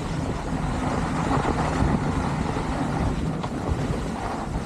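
Ski bike's skis sliding and scraping over packed snow, a steady rushing noise with a low rumble.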